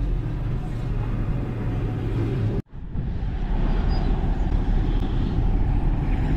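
Steady engine and road rumble of a vehicle driving along a city street, heard from on board. The sound cuts off abruptly about two and a half seconds in and picks up again as similar driving noise.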